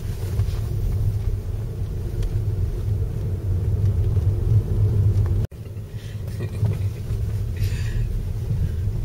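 Steady low rumble of a car driving, engine and road noise heard from inside the cabin, with a momentary dropout about halfway through.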